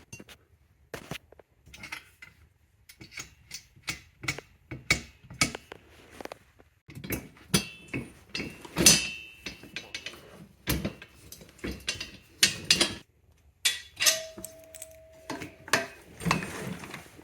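Metal cart parts and hardware clinking and knocking while a dump cart's handle is bolted on by hand: irregular sharp clicks and taps, some ringing briefly, with a short steady tone near the end.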